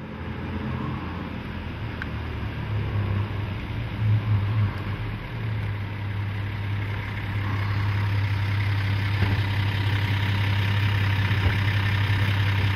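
1951 Studebaker Champion's flathead six-cylinder engine idling steadily, a low even hum.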